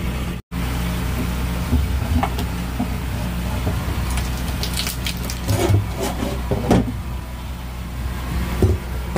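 Pry bar levering a glued-down plywood lid off a fiberglass water tank: scattered scrapes and several sharp knocks, the loudest a little after halfway, over a steady low mechanical hum.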